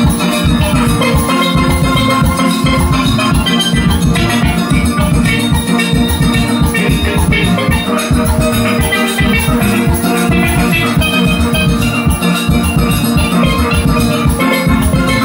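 Steel pan ensemble playing, many pans ringing out a melody and chords over a steady drum beat.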